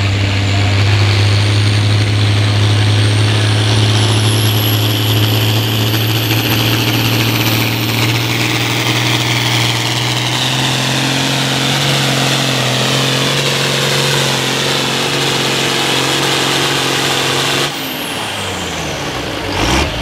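International farm tractor's diesel engine running hard under full load as it drags a weight-transfer pulling sled, a loud, steady heavy drone with a thin high whine climbing over the first several seconds. The sound drops abruptly a couple of seconds before the end.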